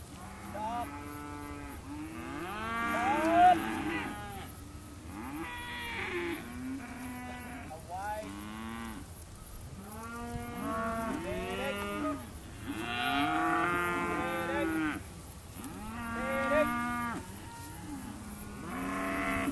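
A mob of weaner calves bawling, many calls overlapping one after another.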